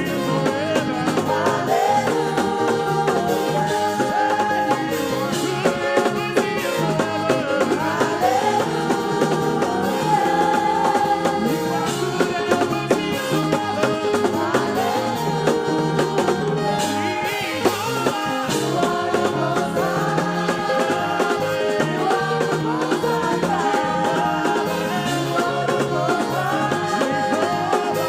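Gospel praise song: singing over instrumental backing with a steady beat.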